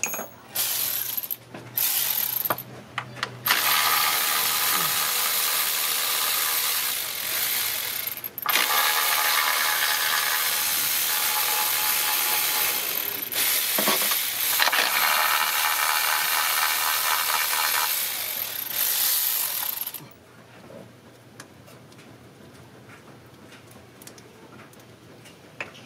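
Ratchet wrench working fasteners loose while the ignition coils come off: a few short bursts, then three long unbroken runs of about five seconds each, like a powered ratchet spinning. It stops about 20 seconds in.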